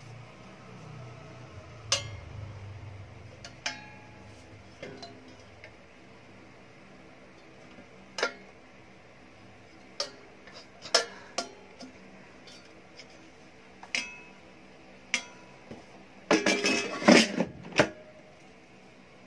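Air fryer crisper plate and basket being handled: single sharp clacks every second or two as the plate is fitted into the nonstick basket, then a louder rattling clatter near the end as the basket slides into the fryer and clicks home.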